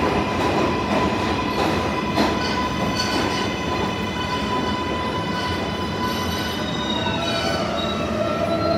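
An NYC subway 7 train of R188 cars pulls into the station: steady wheel and motor rumble with high squealing tones from the wheels on the rails. Near the end a whine falls in pitch as the train slows to a stop.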